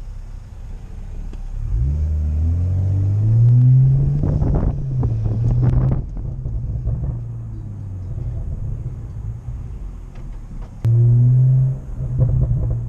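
BMW M340i's turbocharged 3.0-litre straight-six pulling away, its note rising for a couple of seconds, with a few sharp cracks around the shifts before it settles to a steady cruise. A short, loud surge of revs comes near the end.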